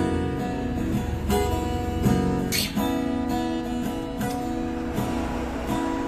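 Acoustic guitar being fingerpicked, single plucked notes ringing over one another in an arpeggio pattern, with a brighter strum about two and a half seconds in.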